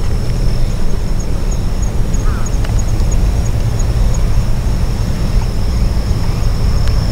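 Wind buffeting the microphone: a loud, steady low rumble. A thin, steady high tone with faint, regularly repeating chirps sits above it.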